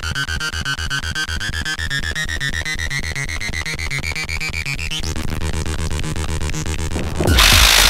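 Electronic intro music with a steady pulsing beat and a synth tone that sweeps upward, ending about five seconds in. The beat carries on, and near the end a loud rush of noise cuts in.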